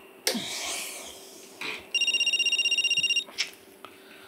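Mobile phone ringtone: a fast pulsing electronic trill that rings in bursts of just over a second with pauses between, one burst in the middle. Bedclothes rustle as a person moves on the bed, loudest about a third of a second in.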